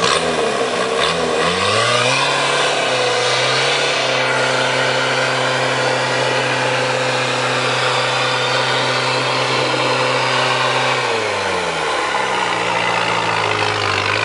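Auverland 4x4's diesel engine revving up over the first two seconds and held at raised revs while the vehicle winches itself out of the mud. The revs drop back to a lower steady speed about eleven seconds in.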